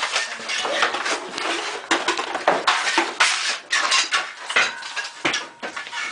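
Irregular metallic clattering and clinking, many small knocks in quick succession, like metal objects being rattled or handled.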